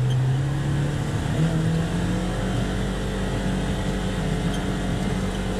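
Polaris Ranger XP 1000 side-by-side's twin-cylinder engine running under load as the machine accelerates, its pitch stepping up about a second and a half in and then holding steady. It is pulling hard on its new drive belt.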